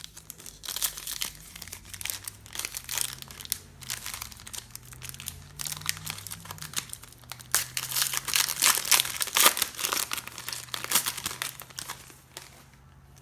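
Plastic foil wrapper of a Panini Prizm baseball card pack crinkling and tearing as it is opened and the cards are pulled out, in irregular crackles that grow dense and busy for a few seconds past the middle.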